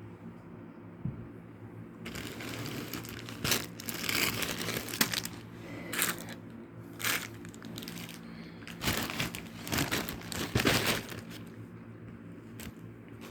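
Packaging crinkling and rustling as it is handled and opened by hand, in irregular bursts that start about two seconds in and die down near the end.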